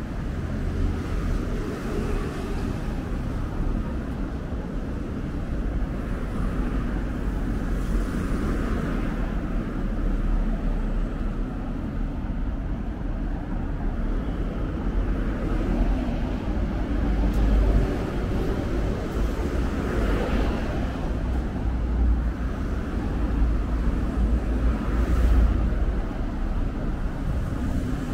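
Street traffic: vehicles passing by over a steady low rumble, swelling a few times as a car goes past.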